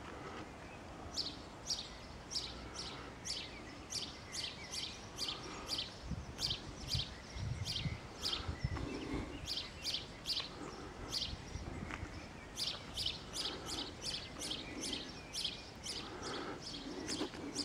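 Small birds chirping over and over, short high chirps several a second, with soft low thuds of footsteps now and then.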